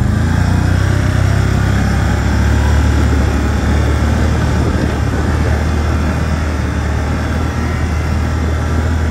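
A vehicle engine running steadily: a loud, even, low drone.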